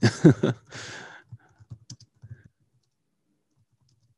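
A man's voice trailing off at the start, then a short breath and a few faint clicks of typing on a computer keyboard, fading to near silence after about two and a half seconds.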